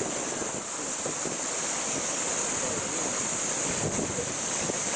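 Cicadas droning in a steady, unbroken high-pitched chorus, over a low murmur of people's voices.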